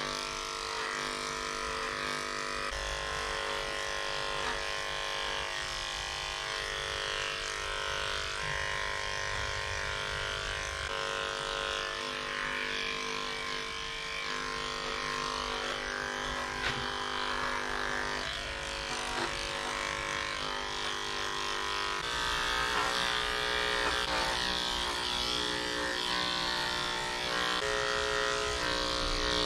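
Electric dog clippers running steadily as they shave through a dog's coat.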